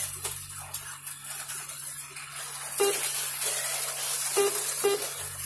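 HO-scale slot cars running on the track: a steady high hissing whir from their small motors and pickups on the rails, with a few short pitched blips.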